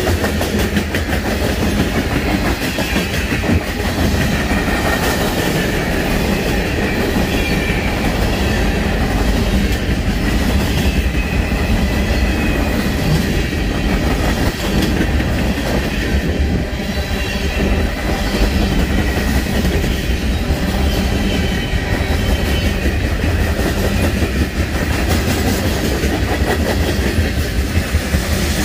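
Mixed freight train's cars rolling past at close range: a steady rumble with the clickety-clack of steel wheels over the rail joints.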